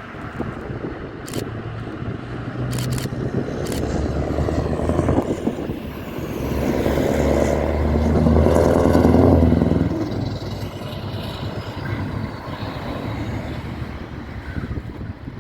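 Heavy truck engine running as the truck passes by: it grows louder, is loudest a little past the middle, then fades away.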